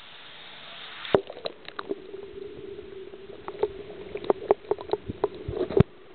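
Paddling a canoe: water sloshing, with a run of sharp knocks and clicks of the paddle against the hull. The knocks come more often toward the end, and the loudest falls just before it ends.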